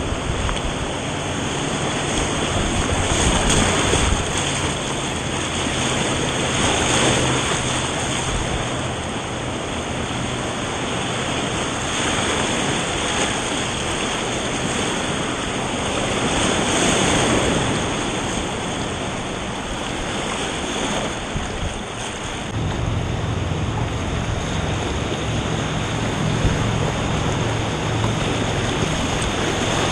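Whitewater rapids rushing and churning around a kayak as it runs down the rapid, swelling louder several times as it drops through waves. A deeper rumble joins about two-thirds of the way in.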